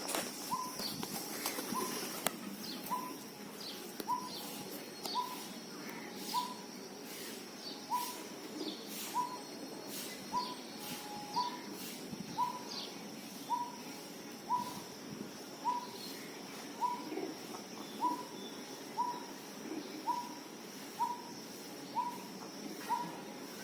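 Morning birdsong: one bird repeats a short, slightly rising note about once a second, very evenly, while other birds chirp higher, mostly in the first half. A steady high-pitched whine runs underneath.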